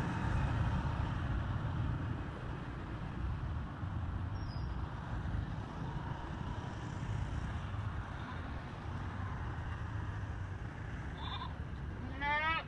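A young macaque gives a brief call and then a short, rising squeal near the end, over a steady low outdoor rumble.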